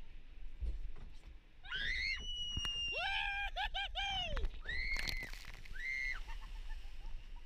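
Riders on a log flume ride screaming as the boat goes over the drop: a run of short, high screams, four in quick succession about three seconds in, then two more.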